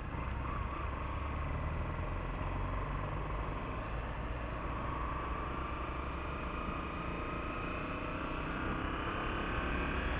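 Small single-cylinder motorcycle engine running at a steady cruising speed, heard from the rider's helmet with wind noise. The engine pitch rises slightly near the end.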